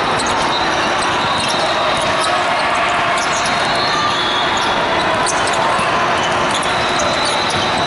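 Basketballs bouncing on a hardwood court as short sharp thuds, over a steady din of a large hall full of players and spectators.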